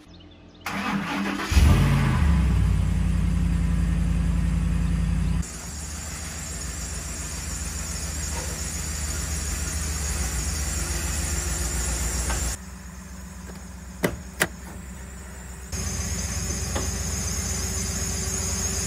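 Ford Raptor's 6.2-litre V8 cranking and starting about a second in, running loudest for a few seconds, then settling to a steady idle with a high-pitched whining, which the owner says is normal for a Ford. Two sharp clicks about half a second apart come in a quieter stretch near the middle.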